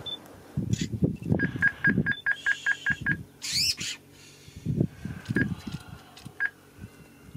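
Birds calling in the background: a quick, even run of about eight high pips, then a sweeping high whistle. Under them, louder, come short low sounds in irregular clusters, mostly in the first two seconds and again about five seconds in.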